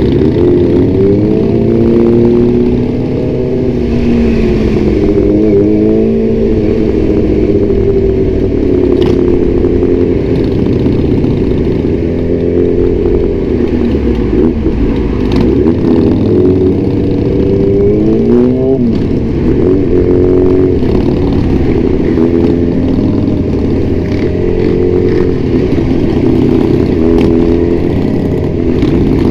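Sport motorcycle with an Austin Racing aftermarket exhaust, riding at speed, its engine note rising and falling repeatedly as the throttle opens and eases off.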